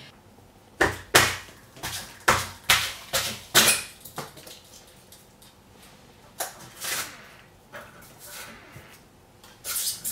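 A run of sharp knocks and clatters of hard objects being handled and set down: about eight quick ones in the first few seconds, then a few more spaced out.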